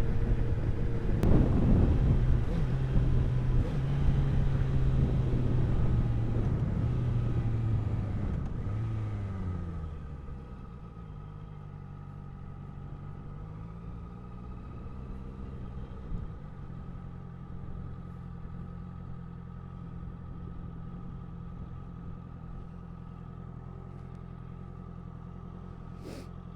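Honda CBR650F inline-four engine through an aftermarket Ixil exhaust, riding along loudly, then the engine note falls away as the bike slows about eight to ten seconds in and settles to a steady idle, with a brief small rev a few seconds later.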